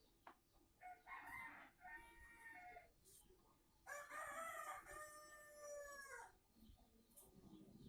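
Rooster crowing twice, faintly; the second crow is longer and louder than the first.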